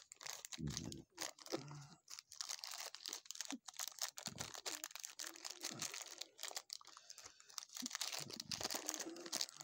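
Thin clear plastic bags crinkling and crackling as hands work them open to get at small miniature figures: an irregular run of quick crackles and rustles.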